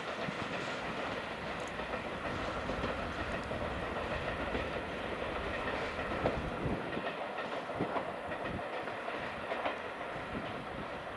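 Steam-hauled passenger train with a DD51 diesel locomotive banking at the rear, running away on the track: a steady rumble of engine and wheels with occasional sharp clicks from the rails, slowly fading.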